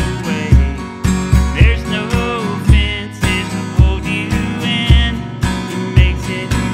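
Country song played live on two strummed acoustic guitars over a steady low beat about twice a second, with a man singing the melody.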